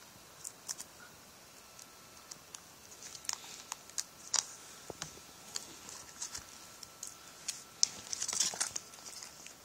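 Small plastic clicks and crinkling as a replacement LCD panel and its tiny connector are handled and fitted into a netbook's screen lid, with a denser rustle near the end.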